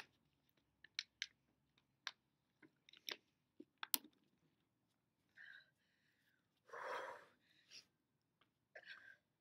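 Thin plastic water bottle crackling and clicking as it is handled, in separate sharp snaps over the first four seconds, then a short breathy rush of noise about seven seconds in.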